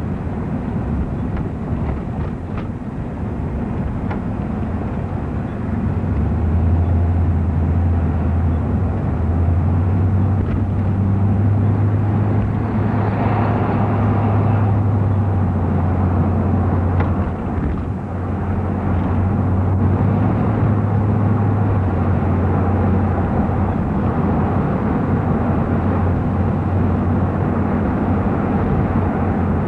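Engine and road noise of a moving car heard from inside it, a steady low drone that grows louder about six seconds in. About halfway through there is a brief louder rush as a large vehicle passes close alongside.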